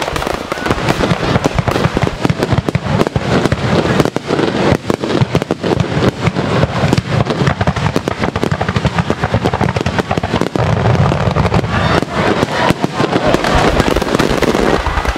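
Aerial fireworks going off in a dense, continuous barrage of bangs and crackling.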